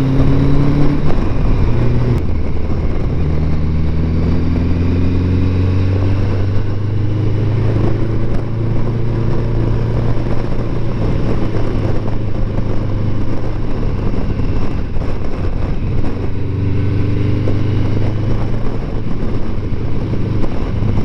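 Motorcycle engine running on the road, its pitch climbing steadily as the bike accelerates, several times, with steadier running in between.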